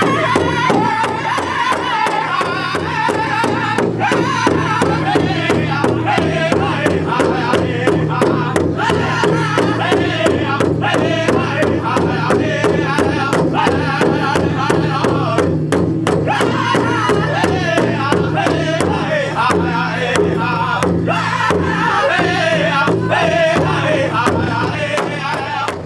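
A powwow drum group singing together, the men striking a large hide powwow drum in unison in a steady, even beat under their voices.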